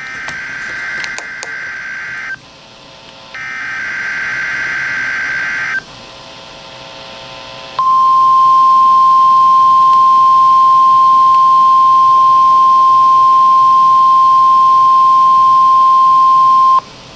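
NOAA Weather Radio Required Weekly Test: two bursts of the buzzing SAME digital header tones, then the steady 1050 Hz warning alarm tone held for about nine seconds before it cuts off.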